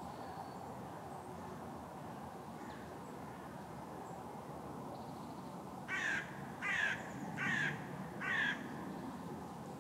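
A crow cawing four times in a row, the caws evenly spaced a little under a second apart, over a steady low background rumble.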